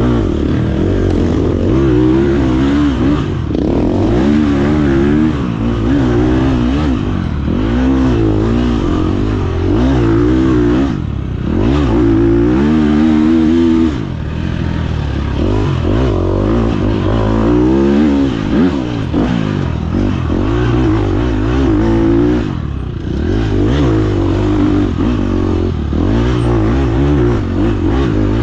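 Dirt bike engine under hard racing throttle, revving up and falling back over and over as it shifts and slows between sections, with a few brief drops off the throttle, about 11, 14 and 22 seconds in. Loose rattling and scraping from the bike rides along with the engine.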